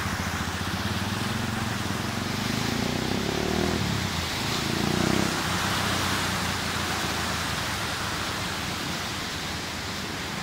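Steady rushing of the Tempisque River in flood, a broad even hiss of fast, high water. A low rumble swells and fades over the first half.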